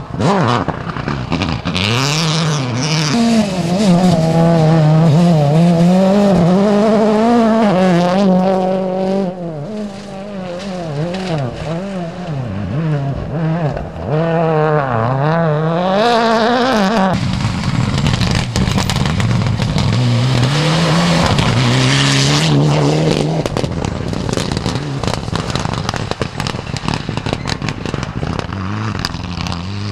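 Rally car engines revving hard through a corner, one car after another. The pitch climbs and drops again and again with gear changes and lifts off the throttle, and the sound switches suddenly to the next car about halfway through. The cars heard are a Ford Fiesta, then a Mitsubishi Lancer.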